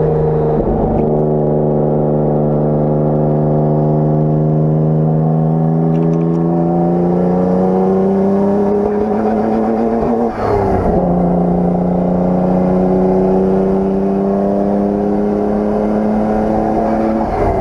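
Nissan Skyline R32 GT-R's twin-turbo straight-six pulling hard under load, its note slowly rising in pitch, with a brief break in the sound about ten seconds in before it pulls and climbs again. This is the engine the owner reports misfiring under load.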